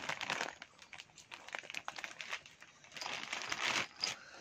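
Clear plastic bag crinkling as it is handled, in a few uneven rustling bursts.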